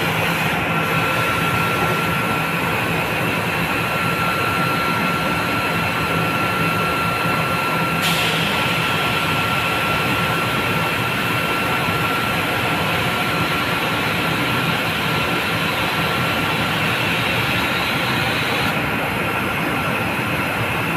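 Thyssenkrupp KB 1750 batch sugar centrifugal running, a steady loud mechanical hum with a high whine over it. A hissing layer comes in about eight seconds in and drops away near the end.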